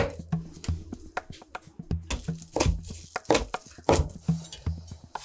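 Kitchen knife chopping on a white cutting board, dicing bell pepper and then parsley leaves, in quick, irregular strokes.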